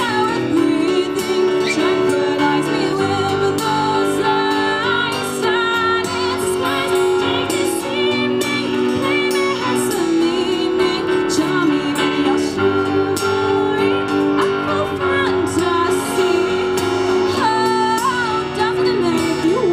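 A woman singing a song live, accompanied by a Casio electronic keyboard and a steel-string acoustic guitar.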